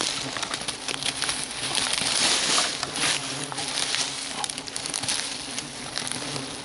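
Dry dead leaves and twigs crackling and rustling as a gloved hand rummages through a pile of garden waste, with Asian hornets buzzing faintly around the disturbed nest.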